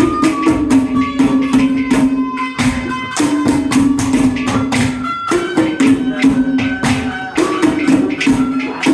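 Instrumental interlude of Haryanvi ragni folk music: a held melodic line stepping between notes over fast, steady jingling percussion.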